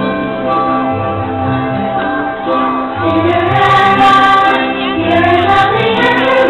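Fireworks show soundtrack: orchestral music with voices singing, growing louder about three seconds in.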